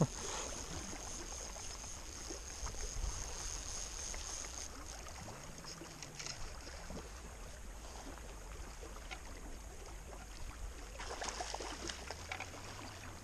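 Faint, steady rush of a shallow river, with light splashing near the end as someone wades through the water.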